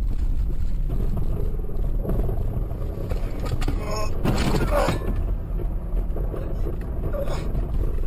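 Steady low road-and-engine rumble heard inside a moving car, with a brief crunch about four and a half seconds in as the car runs into the back of the braking taxi in front.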